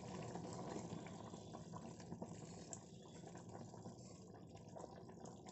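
Faint wet sloshing of a spoon stirring a thin, watery potato and lotus-seed curry in a stainless steel kadai, growing fainter as the stirring goes on.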